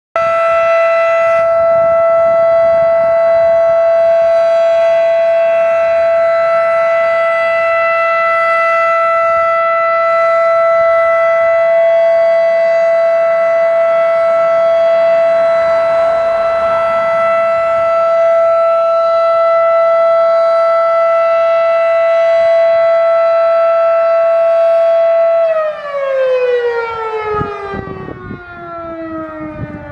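Mechanical siren sounding a steady, loud tone at one pitch, then winding down with its pitch falling steadily from about 26 seconds in.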